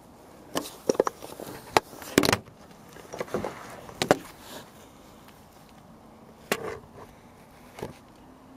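Irregular sharp plastic clicks and knocks from fingers working at a car's wiring-harness connector, trying to release its clip. The clicks come in a cluster in the first couple of seconds, then a few more spaced out.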